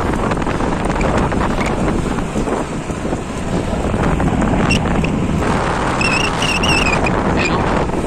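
Steady rush of wind buffeting the microphone of a camera riding along with a pack of mountain bikes at speed. Short high-pitched warbling tones come through a few times in the second half.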